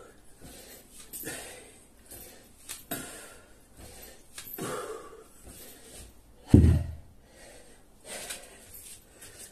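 A man breathing hard, with gasping breaths every second or two, winded from a set of burpees and kettlebell swings. One loud, deep thump about two-thirds of the way through.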